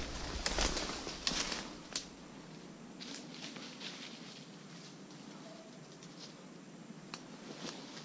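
Rustling of brush and leaf litter, loudest in the first two seconds and fading, then scattered light snaps and ticks of twigs.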